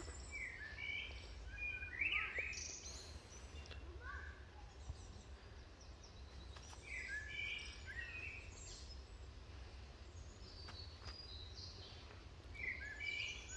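Songbirds singing in woodland: short chirping phrases that come back every few seconds, over a steady low rumble.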